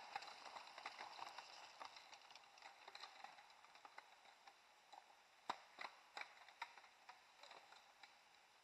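Faint sound of mountain bikes passing on a dirt forest trail, tyres and drivetrains, then only scattered light clicks and ticks, a few sharper ones a little past the middle.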